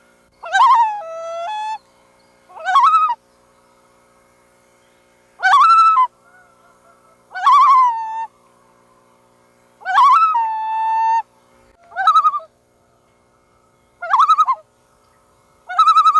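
Loons calling again and again, about eight short calls in a row. Several calls drop to a lower held note at the end.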